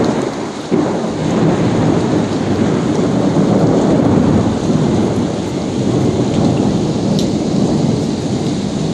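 Thunderstorm: steady heavy rain with a deep rolling rumble of thunder, which swells suddenly about a second in.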